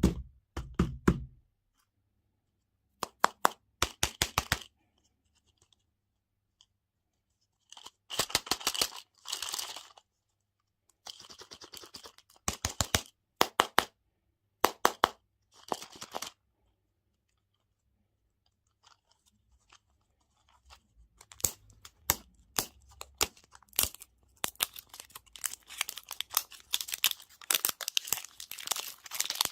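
Candy and toy packaging handled and opened by hand: plastic wrappers crinkling and tearing, with sharp clicks, in short bursts separated by silent gaps. The bursts come thicker and louder in the last third.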